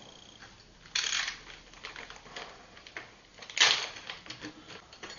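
Handling noise from a plastic-bagged bundle of carbon fiber rods: light rustling and small clicks as the rods shift against each other. Two louder short rattles come about a second in and again just after three and a half seconds.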